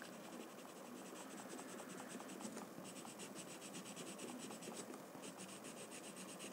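White watercolour pencil scratching faintly on a paper card in quick back-and-forth strokes, several strokes a second, in a few short runs with brief pauses between them.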